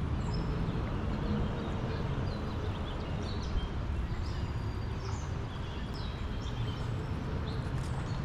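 Birds chirping in short, scattered calls over a steady low rushing noise.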